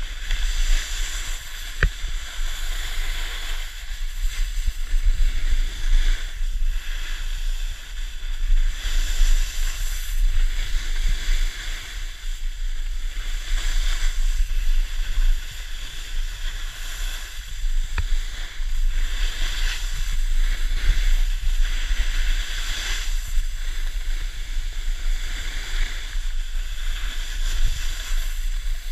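Wind buffeting an action camera's microphone in a steady low rumble, over the hiss and scrape of snow under edges carving down a groomed slope, swelling with each turn about every three seconds.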